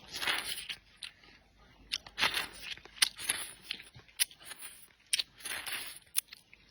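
A person eating close to the microphone: irregular bouts of chewing and slurping, with short crunchy bites and a few small clicks.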